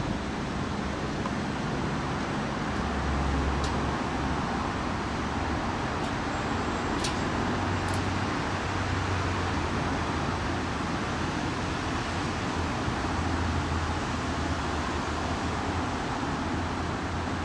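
Steady outdoor city noise of road traffic, an even rumble that neither builds nor fades, with a few faint clicks.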